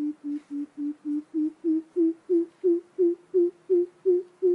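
Greater coucal calling: a steady series of deep hoots, about three a second, the pitch dipping a little and then rising slightly.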